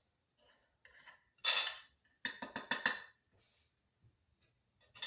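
A spoon scraping and tapping in a dish while breadcrumbs are spooned over chicken: one longer scrape about a second and a half in, then a quick run of about five clinks.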